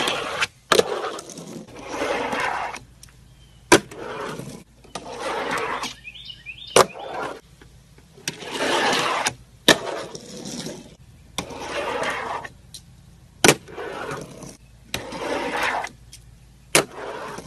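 Fingerboard runs on a ramp, over and over: each run is a second or so of rushing wheel noise that swells and fades, and sharp, loud clacks of the board popping and landing come every few seconds.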